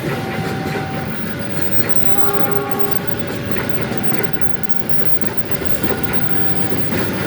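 Train rolling past at close range: a loud, steady rumble of wheels on the rails, with faint short tones coming and going every second or two.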